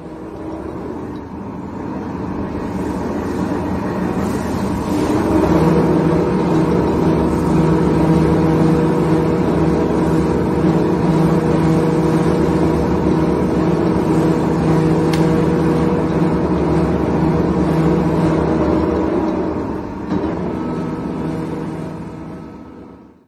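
Two-roll rubber mixing mill running, its motor and gear drive making a steady hum with several held tones as silicone rubber is worked between the steel rollers. The hum grows louder about five seconds in.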